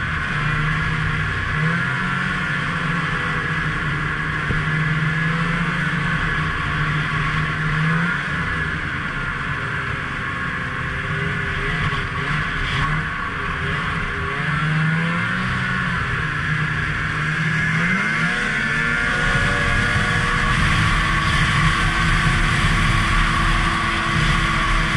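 Snowmobile engine running under way, its pitch rising and falling again and again as the rider works the throttle, over a steady rushing noise. In the last few seconds the engine pitch climbs steadily.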